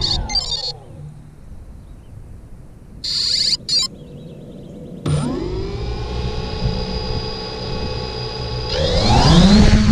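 3DR Solo quadcopter's brushless motors and propellers, heard from the airframe's onboard camera: the motors spin down within the first second, start again and settle to a steady idle about five seconds in, then rise in pitch and get louder near the end as the drone throttles up to take off. Two short high bursts sound about three seconds in.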